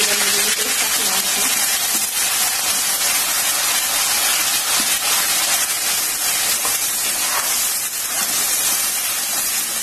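Wet ground onion-tomato-coconut masala paste sizzling hard in hot oil with mustard seeds and cumin, stirred with a spatula: a steady, loud hiss as the paste's water boils off in the oil.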